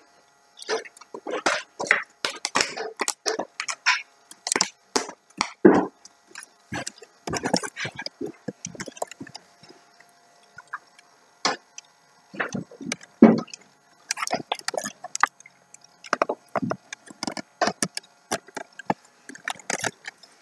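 Irregular clicking, scratching and light knocks of a tabby cat's claws scrabbling on a wall and a quilt-draped board as it climbs, with a sparser lull of a few seconds near the middle.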